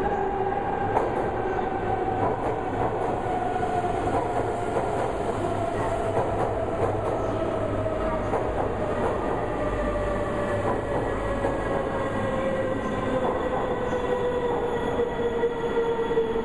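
Shinkansen bullet train pulling into the platform and slowing: a whine falls slowly in pitch as it brakes, over the steady rumble and clatter of its wheels, the rumble heaviest about halfway through.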